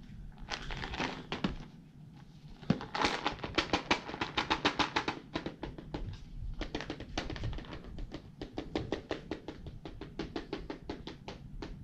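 Plastic tub of Temptations cat treats being shaken, the treats rattling inside in quick rhythmic bursts, the usual signal to cats that treats are coming.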